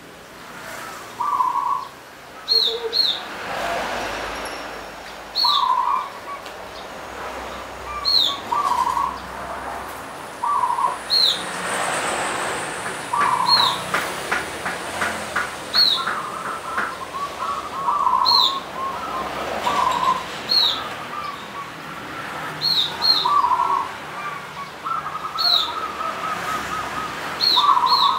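Caged zebra dove (perkutut) singing its cooing song: short rolling, trilled phrases repeated every few seconds. Short high chirps recur in between.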